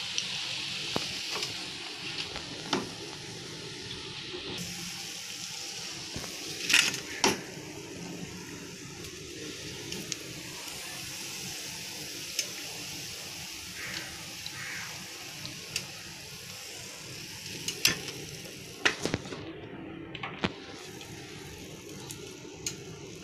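Corn kebabs deep-frying in hot oil with a steady sizzle, and now and then the sharp knock of a wooden spatula against the pan.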